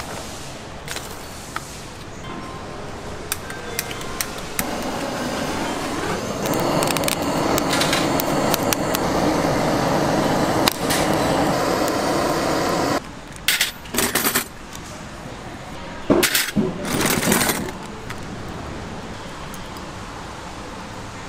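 Lumps of charcoal clinking as they are handled, then a gas blowtorch running steadily on the coals for about seven seconds and cutting off suddenly, followed by a few short scrapes and knocks.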